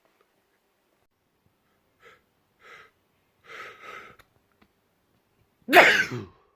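A man's sneeze build-up: a few short, sharp gasping inhales, then a loud sneeze near the end.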